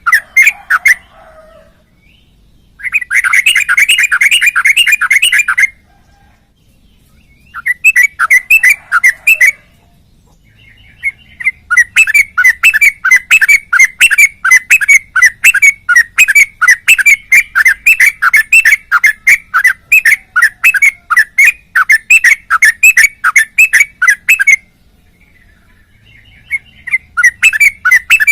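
Caged yellow-vented bulbul (trucukan) singing loudly in rapid runs of short repeated notes, about four a second. The bouts last a few seconds, the longest about thirteen, with short pauses between them.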